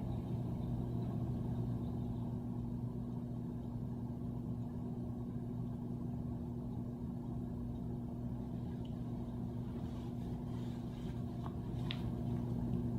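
Steady low hum with two constant tones, over a low background rumble; a few faint ticks come near the end.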